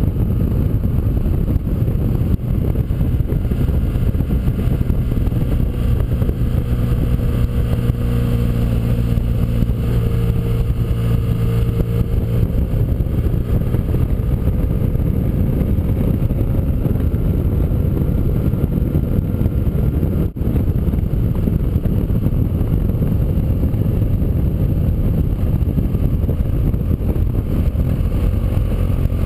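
Motorcycle riding at speed: a steady engine drone under a dense low rumble, with the engine note rising slowly about a third of the way in.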